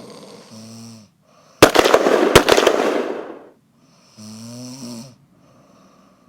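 Heavy snoring from a sleeper: a short low snore, then a very loud, harsh, rattling snore lasting about two seconds, then another shorter low snore near the end.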